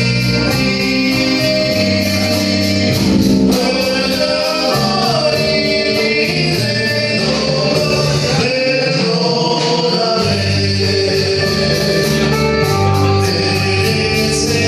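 Live band playing a song with singing over bass, guitar and a steady beat. The bass drops out for a moment just past the middle, then comes back in.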